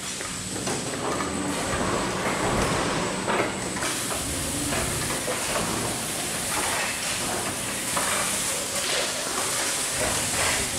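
Automated film roll wrapping machine running: a steady mechanical hum and hiss with scattered clicks and knocks. The hiss gets brighter about four seconds in.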